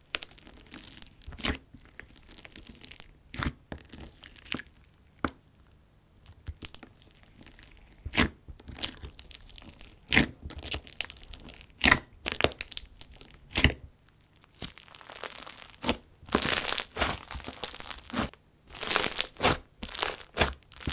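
Hands squishing, poking and stretching a clay-based slushy slime with beads, making irregular popping and crackling clicks that come thicker and denser in patches in the second half.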